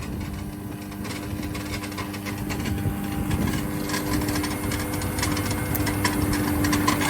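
Vecoplan 35/8/2 wood shredder running: a steady motor hum with irregular cracks and knocks as wood is broken up by the rotor, getting louder and busier from about halfway through.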